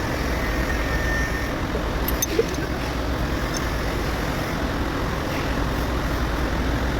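Steady low vehicle rumble with a single short click about two and a half seconds in.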